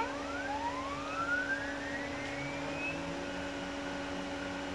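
Stepper motors of a homemade CNC router driving the X axis: two faint rising whines as the axis speeds up, over a steady hum. The motors run quietly now that shielded, grounded wiring has cured their EMI noise.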